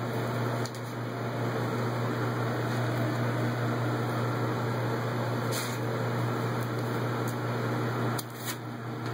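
Steady low mechanical hum with an even hiss, with a few faint soft taps about five and a half seconds and eight seconds in.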